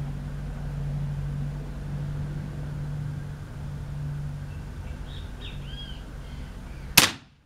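A single sharp crack of a shot from a Shark CO2 air rifle about seven seconds in, over a steady low hum, with a few bird chirps shortly before the shot.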